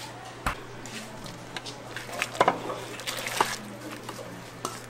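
Scattered clinks and knocks of dishes and utensils, the strongest about half a second, two and a half and three and a half seconds in, over a steady low hum and faint voices.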